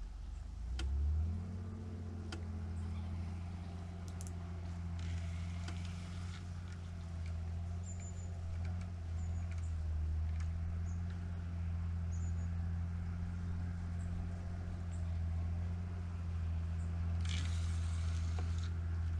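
A motor's low, steady drone that rises in pitch about a second in and then holds steady, with a few faint high chirps and two brief hissing rushes.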